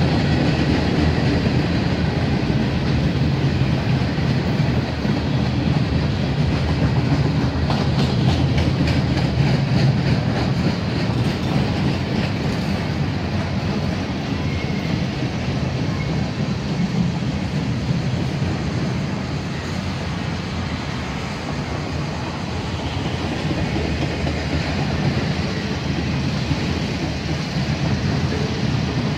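A freight train of empty flatcars rolling past: a steady rumble of steel wheels on the rails, with quick clicks of wheels over rail joints about eight to eleven seconds in.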